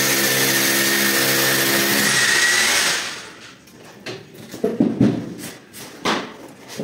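Electric drill running at a steady speed as a ceiling anchor on a threaded hanger rod is tightened, stopping about three seconds in. A few knocks and clatters follow.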